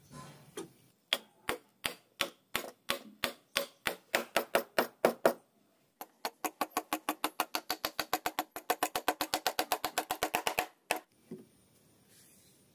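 A rapid series of sharp knocks, each with a short ring. The first run starts at about three a second and speeds up to about five. After a short pause about six seconds in, a faster, even run of about eight a second stops just before eleven seconds, followed by one last knock.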